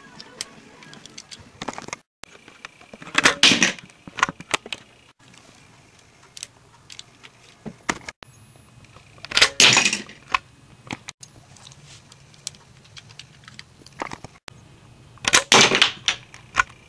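Homemade LEGO rubber-band crossbow fired three times, about six seconds apart. Each shot is a short clatter of snaps and knocks, with light plastic clicks from handling the bricks in between.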